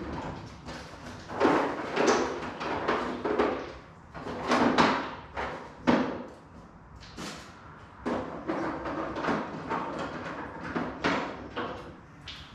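Irregular knocking and clattering of small hard objects being handled and set down, a few sharper knocks among them: weights such as rocks and taped nuts and bolts being gathered to hold down a spray-paint stencil.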